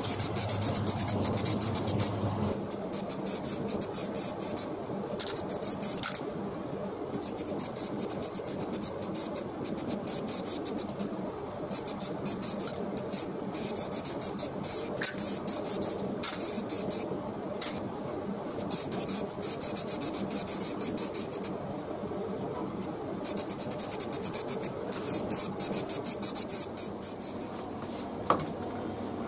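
Paint being sprayed onto a bicycle frame: a hissing spray that starts and stops in passes every few seconds. There is a low hum in the first couple of seconds and a single click near the end.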